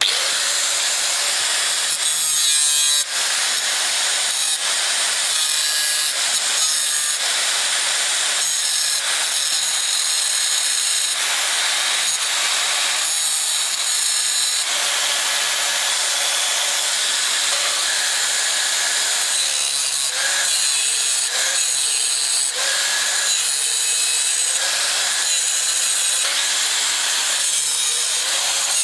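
Continuous loud rasping, scraping noise of tool work, shifting in character every second or so as if worked in strokes.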